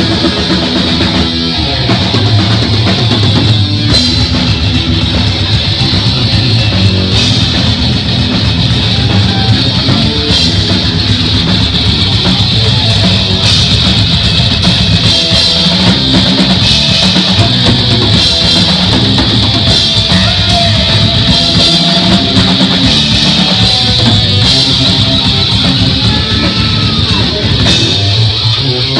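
Heavy metal band playing an instrumental live and loud: distorted electric guitar over bass guitar and a drum kit, with a few bent, gliding guitar notes about two-thirds of the way through.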